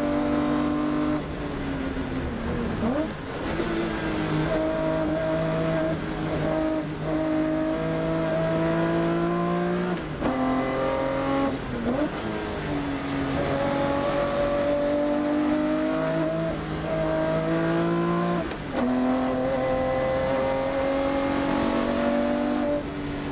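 BMW 320 Group 5 race car's engine under hard throttle, heard from inside the cockpit. Its pitch climbs through each gear and drops suddenly at the gear changes, about a second in and again near nineteen seconds. Around ten to twelve seconds in it dips and rises briefly as the car slows for a corner.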